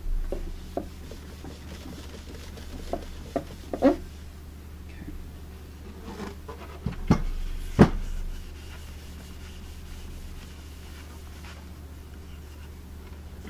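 Cloth rubbing over the finish of a Majestic 5A455 radio's wooden cabinet to wear down bubbled spots, with scattered knocks and clunks as the cabinet is handled and shifted. The loudest knocks come about four and eight seconds in, over a steady low hum.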